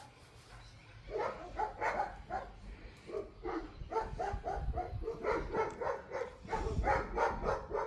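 Dogs barking repeatedly in quick bursts of short yelping barks, over a low steady hum.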